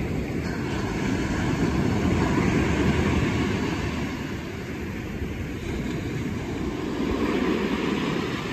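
Ocean surf breaking and washing in, a steady rumbling rush that swells about two seconds in and again near the end.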